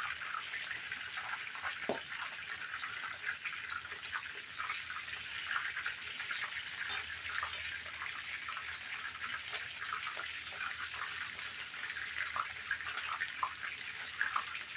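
Flour-dusted chicken pieces searing in hot oil in a large skillet: a steady sizzle with many small crackles and pops.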